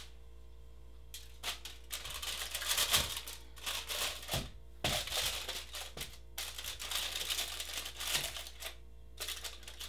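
Aluminium foil crinkling and rustling in a glass baking dish as spaghetti squash halves are turned over on it, with a few soft knocks as the halves are set down.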